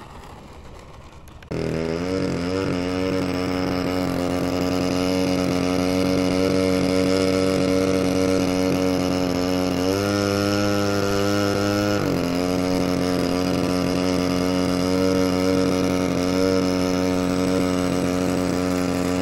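Radio-controlled model biplane's small engine running steadily, its note shifting briefly for about two seconds near the middle. It starts about a second and a half in and cuts off just before the end.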